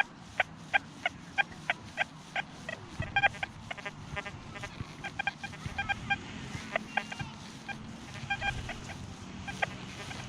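XP Deus II metal detector giving a run of short, clipped target beeps at shifting pitches, several a second, as the coil sweeps over iron-laden ground.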